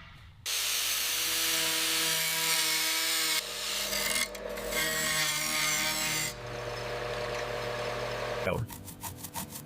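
A power tool abrading a metal part, running with a steady whine under a loud hiss and stopping and starting a few times. Near the end it gives way to fast, rhythmic back-and-forth scrubbing strokes, part of cleaning off corrosion.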